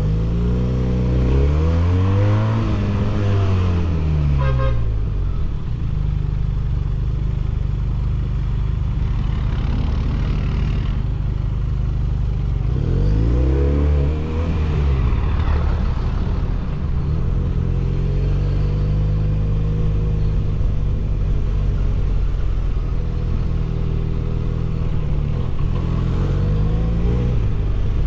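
Benelli 302S 300 cc parallel-twin engine and exhaust heard on board while riding, revving up and back down three times (near the start, about halfway, and near the end), with steadier running between.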